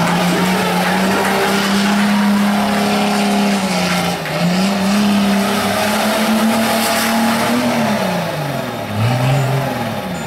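BMW E30 engine held at high revs as the car spins on wet tarmac, with tyres hissing and squealing. A brief dip in revs comes about four seconds in, and near the end the revs fall and rise twice.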